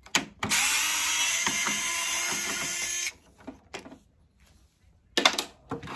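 Cordless electric screwdriver running steadily for about two and a half seconds, backing a screw out of a mini split fan's motor housing. A brief sharp clatter follows about five seconds in.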